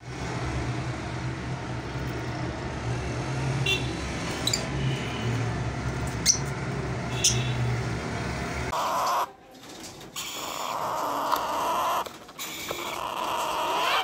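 Caged lovebirds giving a few short, sharp, high chirps over a steady low hum. From about nine seconds in the hum is gone and busier, wavering bird calls take over, broken by short gaps.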